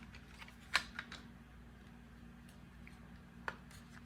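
A few sharp clicks and taps of hard plastic vacuum-hose parts being handled and pushed together, the loudest just under a second in and another near the end, over a faint steady low hum.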